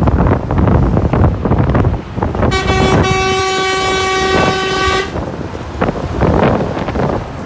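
A horn sounds one steady blast of about two and a half seconds, starting a little over two seconds in, over wind buffeting the microphone.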